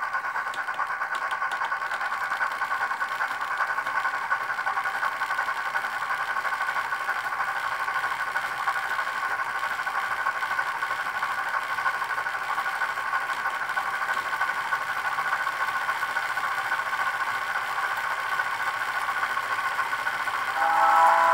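Sound decoder of a Rivarossi H0 Chapelon 4-6-2 model steam locomotive playing a steady steam running sound through its small speaker, with the model's mechanism running on a rolling-road test stand. About a second before the end, a louder whistle-like chord of several steady tones comes in.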